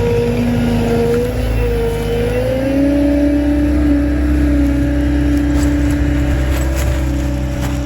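An engine of heavy yard machinery running under load, its pitch rising and then holding higher about two and a half seconds in, with a few light knocks near the end.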